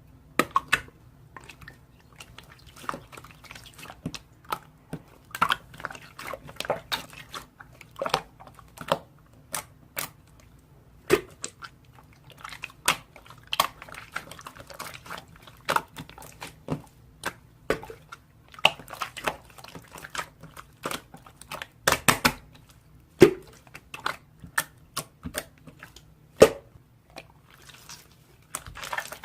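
Irregular sharp clicks and short crackles, many a second at times, close to the microphone, over a faint low hum.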